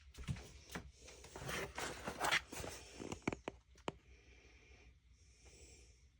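Packaging being handled and opened: irregular rustling and scraping, with a few sharp clicks about three to four seconds in, then quieter.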